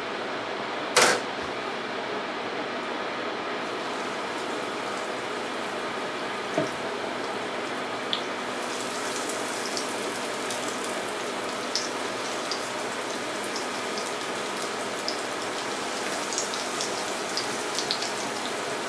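Breaded veal cutlets sizzling in hot vegetable oil in a frying pan as they are laid in one after another; the sizzle grows fuller as more cutlets go in. A single sharp knock about a second in.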